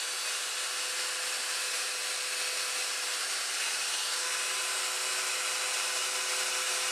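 High-speed rotary cutter motor on an ornamental lathe running at a steady high whine with hiss, its bit cutting into a wood blank turning slowly in the chuck.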